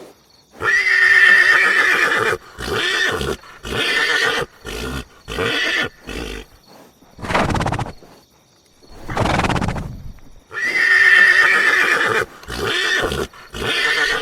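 Horse neighing: a long, high whinny followed by a string of shorter whinnies, two noisy snorting breaths, then the same long whinny and its shorter calls again.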